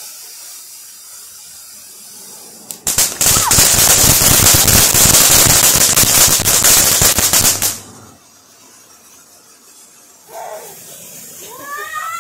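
Firework fountain spraying with a steady hiss, then about three seconds in it breaks into loud, dense crackling for about five seconds before dying back. Near the end a wavering call rises and falls in pitch.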